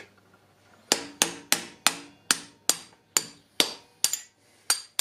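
Hammer driving a drift punch against the main-stand pivot bolt of a Minarelli scooter engine: a run of about a dozen sharp metallic strikes, roughly three a second, starting about a second in. The bolt is moving out easily, a sign that the main-stand mount is intact.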